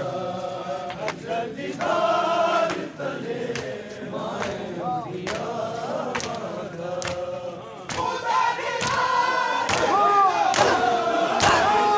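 Crowd of men chanting a noha together, their sung lines held and gliding, with rhythmic slaps of hands on bare chests (matam) keeping time; the slaps come faster and louder in the second half.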